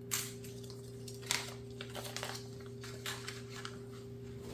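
Light handling noises of unboxed items and their packaging: a few brief rustles and crinkles, over a steady low electrical hum.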